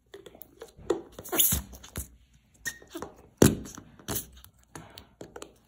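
Fluffy whipped slime being pressed into a clear plastic tub with the fingers, making irregular sticky squelches and sharp pops as trapped air escapes.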